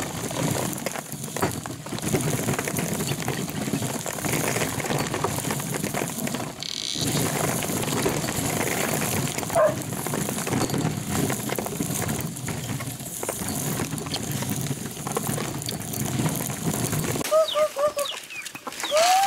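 Stone mill grinding dried corn kernels as the upper millstone turns on the lower one, making a steady grinding noise with a brief break about seven seconds in. Near the end it gives way to a few short calls from chickens.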